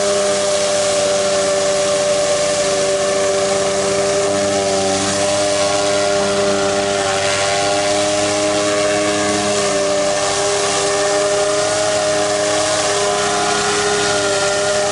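Gas-engine pressure washer running steadily, with the high-pressure water spray hissing.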